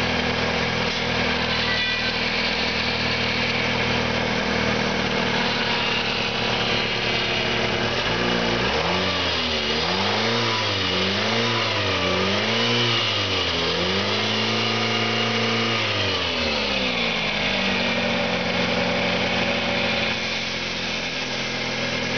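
2001 Ford Escort's 2.0L Split Port SOHC four-cylinder engine idling steadily, then about eight seconds in revved up and down three times in quick succession, held at higher revs for a couple of seconds, and let fall back to idle.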